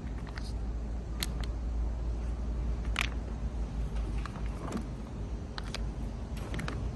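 Filled plastic spout pouches being handled and set on a steel counting scale: scattered light taps and clicks, the strongest about a second in and three seconds in, over a steady low hum.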